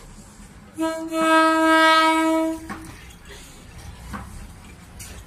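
Horn of a State Railway of Thailand diesel railcar: a brief toot, then one steady blast of about a second and a half.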